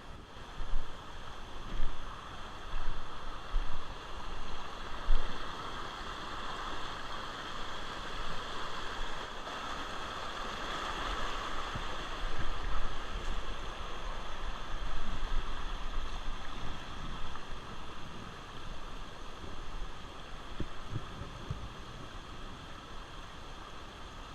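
Flowing river water, a steady rushing that swells briefly midway, with a few loud thumps in the first few seconds.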